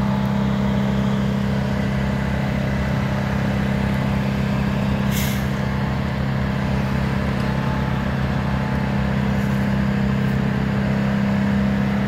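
Heavy truck engine idling steadily with a deep, even hum. A brief hiss about five seconds in.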